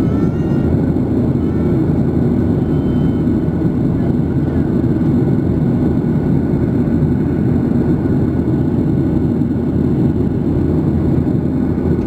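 Steady cabin noise in a Boeing 737-900ER airliner seated over the wing: the low, even roar of its CFM56-7B turbofan engines and the airflow over the fuselage, with a faint high whine above it.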